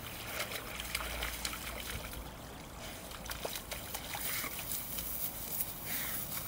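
Water splashing and trickling with small crackles as a dog wades out of the lake through the reeds.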